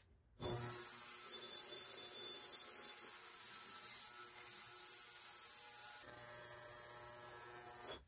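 Benchtop ultrasonic cleaner running: a steady electric hum with a high cavitation hiss from the liquid-filled tank. It switches on about half a second in and shuts off just before the end, swelling slightly midway as a beaker is held down in the bath.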